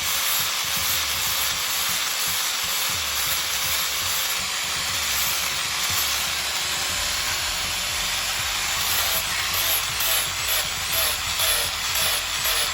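Power sander running against the wood of a large tree root, a steady loud hiss. From about nine seconds in the sound pulses about twice a second.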